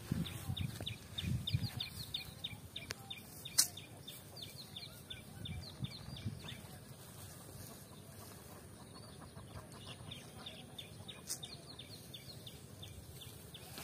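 A bird calling in fast runs of short high chirps, about five a second, in two long runs with a pause between. Soft low thuds come in the first two seconds, and a single sharp click about three and a half seconds in is the loudest moment.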